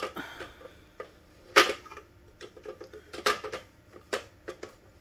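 Hard plastic clicks and knocks from a Brother TN660 toner cartridge being handled and fitted into its drum unit: a sharp knock about a second and a half in, then a run of small clicks and two more knocks.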